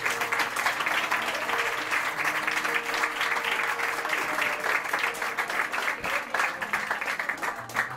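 Audience applauding, with a few held notes from an acoustic guitar ringing underneath.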